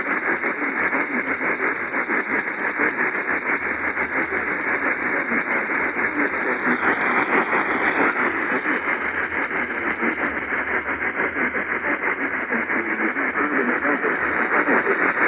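Radio static: a steady, dense hiss with a fast crackling flicker from a radio receiver with no clear signal coming through.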